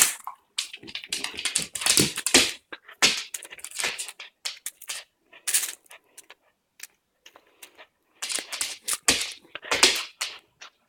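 A pet tearing and chewing at a cat toy: irregular clicking, rustling and crinkling, thinning out for a couple of seconds in the middle.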